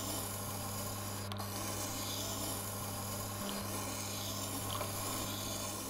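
Tormek wet grinder running, with a plane blade held in the SE-77 camber jig being ground on the water-cooled stone: a steady grinding hiss over the machine's low, even motor hum. Finger pressure is shifted across the blade to grind a camber into its edge.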